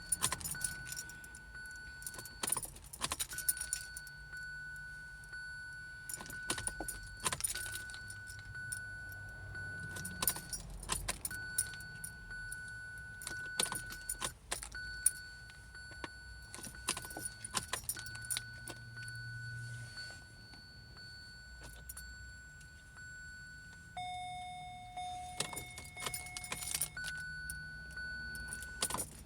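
Key ring jangling as the ignition key of a 2017 Kia Sorento is turned again and again, with sharp clicks every few seconds and a steady high electronic tone that breaks off at each turn. A different chime sounds a little before the end. No engine cranks or starts: the car won't start.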